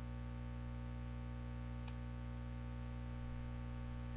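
Steady low electrical hum on the recording, with one faint click about two seconds in.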